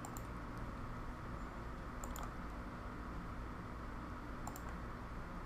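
Computer mouse clicking a few times, some clicks in quick pairs, over a steady low room hum.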